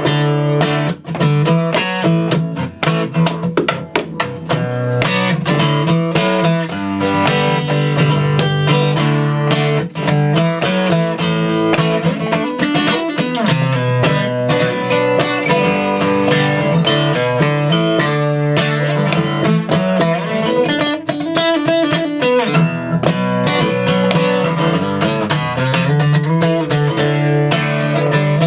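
Acoustic guitar being strummed and picked in an instrumental passage, with steady chords ringing and no voice.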